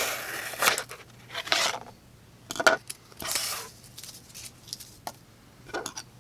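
The mirror-finish 7Cr stainless blade of a Gerber Wingtip slip-joint pocket knife slicing through cardboard in several short scraping strokes, the first the loudest. A few light clicks follow near the end.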